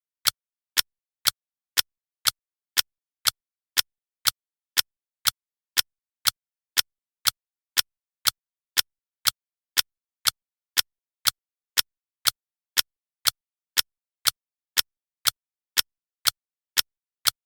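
Clock-style ticking of a countdown timer: sharp, identical ticks, evenly spaced at about two a second.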